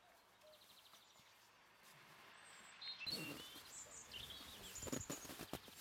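Faint rustling of a nylon stuff sack being handled as its drawcord is pulled tight, loudest about three and five seconds in, with small bird chirps in the background.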